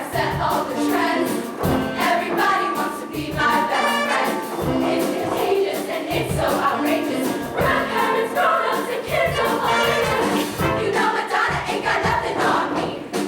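Show choir singing together in full voice over an instrumental accompaniment with a steady beat.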